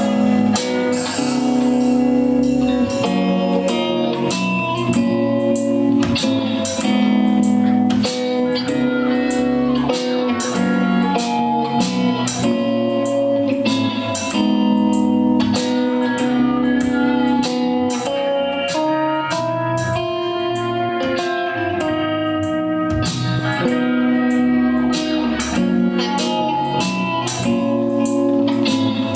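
A band playing live: an instrumental passage led by guitar over a steady beat, with no singing.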